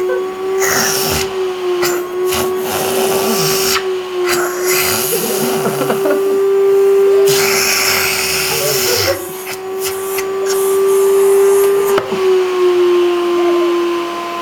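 Household vacuum cleaner running: a steady motor hum whose pitch sags slightly now and then, with a rushing air noise that rises and falls.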